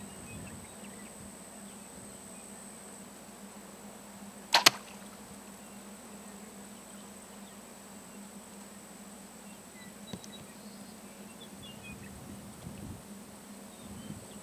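A bowfishing bow shot: the string is released with a sharp double snap about four and a half seconds in, over faint outdoor background.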